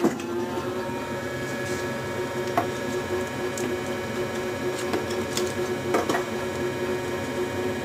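Hydraulic clicker press running with a steady hum, broken by sharp clicks and knocks as the steel cutting dies and leather are handled; the loudest knocks come just at the start and twice in quick succession about six seconds in.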